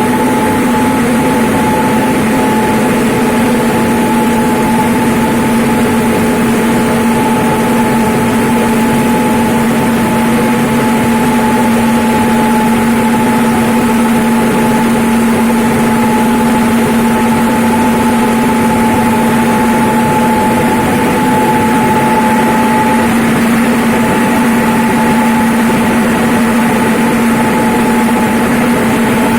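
Rice milling machine running steadily: a loud, even machine hum at a constant pitch.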